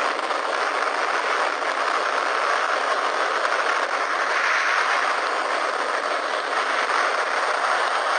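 A steady, unchanging mechanical rushing noise, like a machine running.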